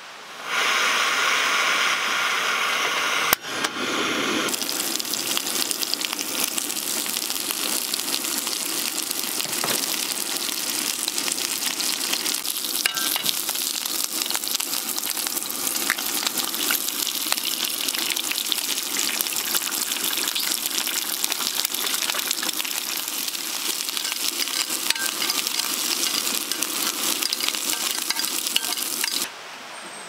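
A steady, dense crackling sizzle that starts about four seconds in and stops abruptly near the end. Before it there is a shorter, different hissing noise with a sharp click about three seconds in.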